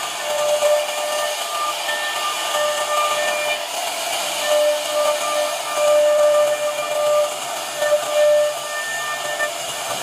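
CNC router spindle running at high speed while its cutter carves a relief pattern into a wooden panel: a steady high whine over a hiss of cutting. The whine swells and fades every second or so as the cut goes on.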